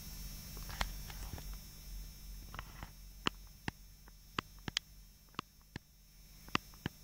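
A steady low hum with a scatter of sharp, separate clicks: a few in the first second and a half, then about ten more spread over the last four seconds.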